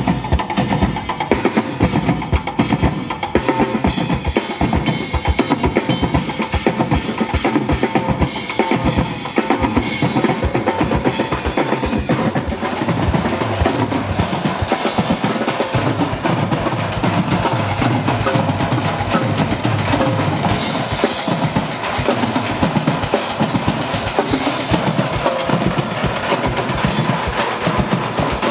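Percussion ensemble of drum kits, steel oil drums and plastic buckets struck with drumsticks, playing a dense, unbroken run of beats.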